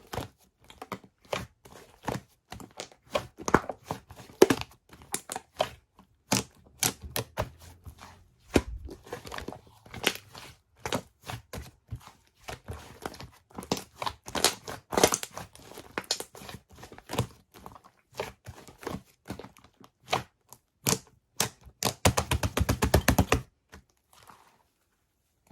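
Fluffy slime being squished, poked and stretched by hand, giving irregular sticky clicks, pops and snaps. Near the end comes a rapid run of clicks, about ten a second, before the sound stops suddenly.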